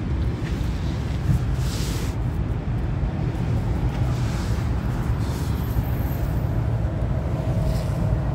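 Steady low rumble of outdoor background noise, with a couple of faint brief rustles about two and four seconds in.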